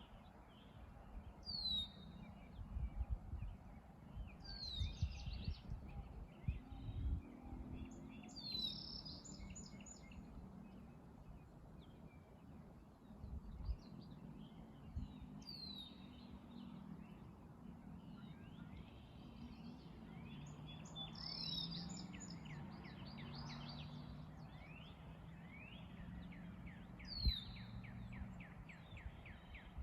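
Small birds calling: a short, clear, downward-sliding note repeated every few seconds, with quicker chattering calls between. Underneath is a low rumble with occasional thumps, one sharper thump near the end.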